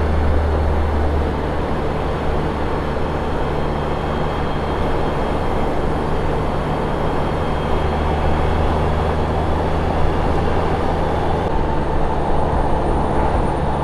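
A vehicle running steadily on the move: a constant low engine hum under steady road and wind noise, which shifts slightly about eleven and a half seconds in.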